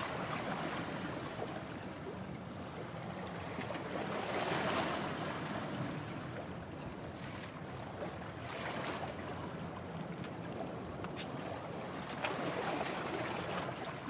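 Sea waves washing onto the shore, swelling and fading about every four seconds.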